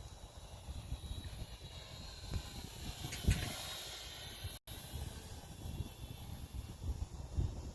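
Gusty wind buffeting the microphone, a ragged low rumble that swells hardest about three seconds in and again near the end. The sound drops out for an instant a little past halfway.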